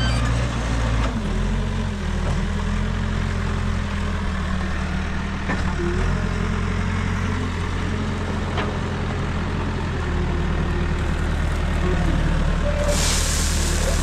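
Caterpillar backhoe loader's diesel engine running steadily as the machine drives with a loaded front bucket, its pitch dropping slightly about a second in. Near the end a sudden loud hiss of gravel pouring out of the tipped front bucket starts over the engine.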